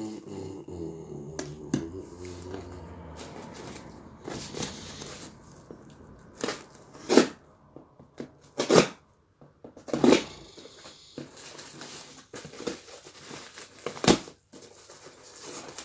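A heavy cardboard mailing package being cut and torn open by hand with a knife: scraping and rustling of cardboard and packing tape, broken by about five sharp rips.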